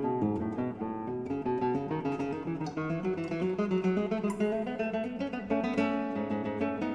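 Background music of plucked and strummed acoustic guitar.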